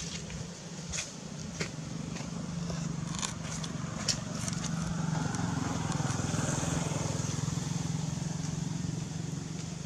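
A motor engine running steadily, with a low even hum that grows a little louder around the middle and eases off near the end. A few sharp clicks come in the first half.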